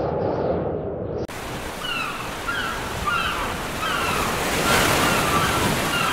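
Ocean surf washing steadily, with a series of short bird calls repeating about every half second over it. About a second in, a muffled, dull sound cuts off abruptly and the surf sound takes over.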